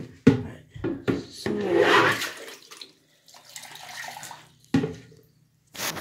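Water splashing and sloshing in a miniature toy toilet, swelling about two seconds in, among sharp knocks and clatters from the small toilet being handled.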